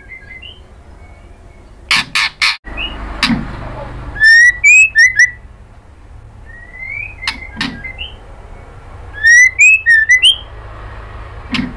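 White-rumped shama (murai batu), given as a female, calling in loud short phrases about every two to three seconds: sharp clicking notes mixed with quick rising whistles and rapid high trills.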